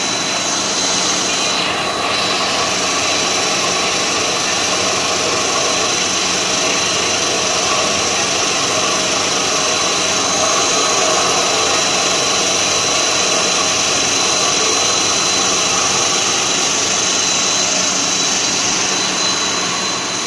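Twin-screw extruder rice production line running under power: a steady mechanical whir with a constant high, thin whine over it.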